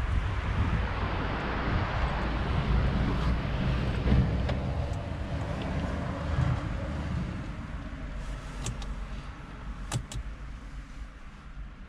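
A low rumble and hiss that fade away, then a few sharp clicks near the end, made by fingers on the Peugeot 208's centre-console toggle switches.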